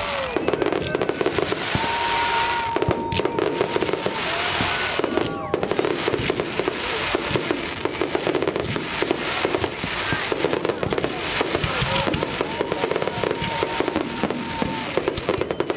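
Fireworks display: a dense, unbroken barrage of shells bursting, with thick crackling and popping throughout and a few whistling tones now and then.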